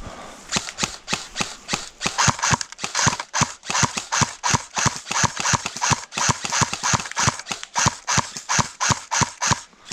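Airsoft gun firing a rapid, steady string of sharp shots, about four a second, starting about half a second in.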